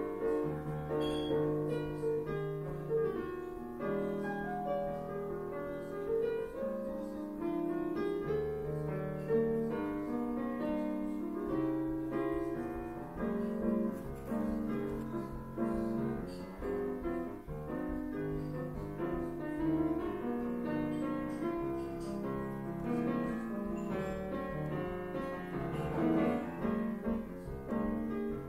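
Piano music playing, a continuous run of notes over chords without a break.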